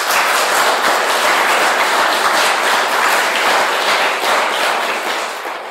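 Audience applauding: a dense patter of many hands clapping that starts to die away near the end.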